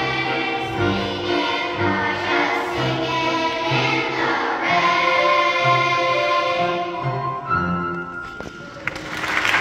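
Children's choir singing in unison, ending on a held note; near the end, applause starts and grows.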